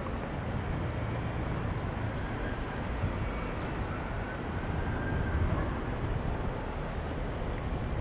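Outdoor ambience over a city: a steady low rumble with no distinct events.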